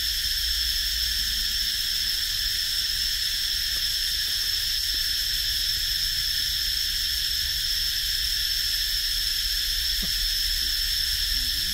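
Chorus of cicadas droning steadily, a constant high-pitched buzz.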